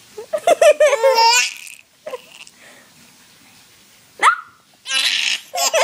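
Baby laughing in bursts: a run of high, pitched giggles about a second in, a short rising squeal just after four seconds, then laughing again near the end.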